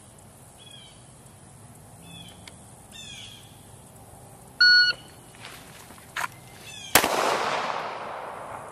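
A shot timer gives one loud start beep; about two and a half seconds later a single 9mm Glock 19 MOS pistol shot cracks, its echo trailing away for over a second, with a sharp click shortly before it. Birds chirp repeatedly in the background.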